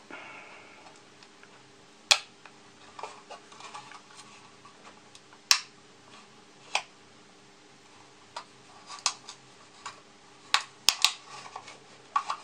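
Irregular sharp clicks and small snaps of a hobby knife prying and scraping at hard plastic model-kit parts. The loudest snaps come about two and five and a half seconds in, with a quick cluster of clicks near eleven seconds.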